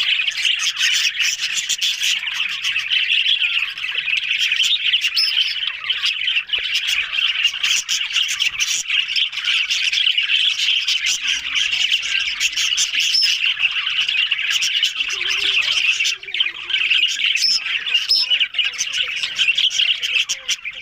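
A group of budgerigars chattering and squawking without a break, many high chirps and clicks overlapping at once.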